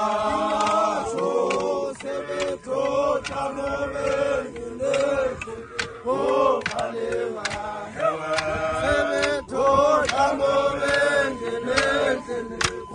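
A group of men chanting a song together, in phrases of held notes with short breaks between them. Sharp knocks cut through the singing now and then.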